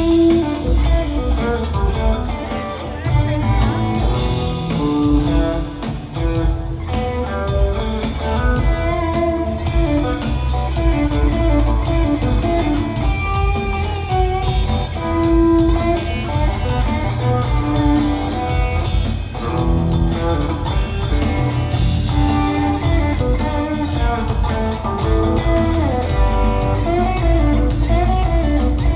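Live electric band of guitar, bass and drums playing a blues-rock instrumental break, with the guitar picking melodic lines over a steady bass and drum groove.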